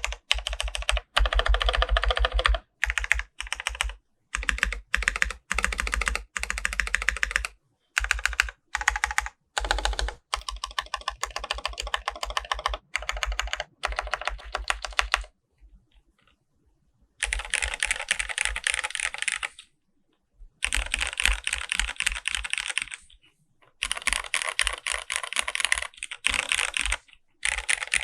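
Typing on an NCR80 R1 mechanical keyboard with lubed Cherry Hyperglide Black linear switches and CRP R4 keycaps, its case dampened with foam and a tape mod. Fast runs of keystrokes come in several bursts broken by short pauses, the longest a little past the middle.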